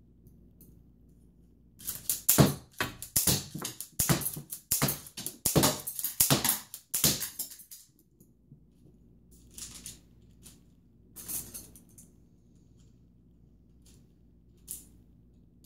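Hard plastic K'NEX gun parts and rods clicking and clattering in a dense run for about five seconds, then a few separate clicks.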